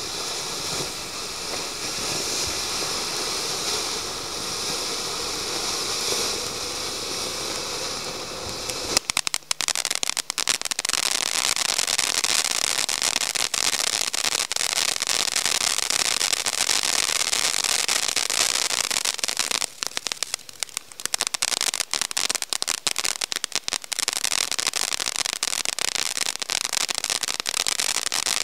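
A firework ground fountain burning with a steady hiss. About nine seconds in it changes to a dense crackle of many small sharp pops from crackling sparks, which carries on and thins out briefly twice.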